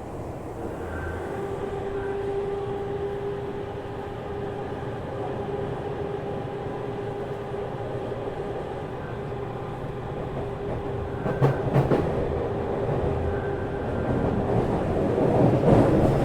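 Tokyu 5000 series electric train running, heard from inside the car: steady rumble of wheels and motors with a level whine from the Hitachi IGBT-VVVF inverter drive. There are a few sharp wheel clacks over rail joints past the middle, and the noise grows louder near the end.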